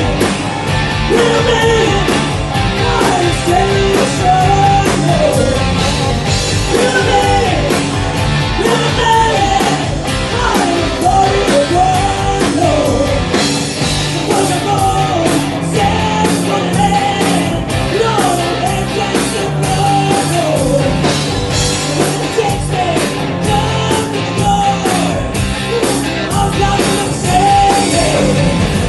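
Live rock band playing: a woman sings the melody into a microphone over guitars and drums.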